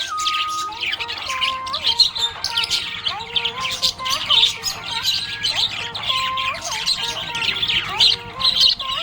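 Budgerigars chirping and chattering continuously in fast, dense twitters, with held whistled notes stepping up and down beneath.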